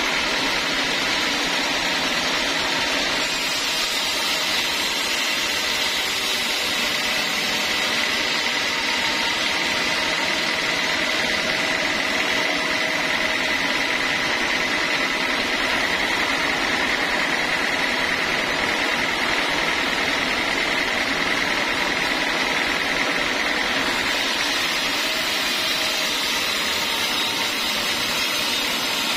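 Large band sawmill running as its blade saws lengthwise through a teak log: a steady machine noise with a high whine that grows stronger through the middle of the cut.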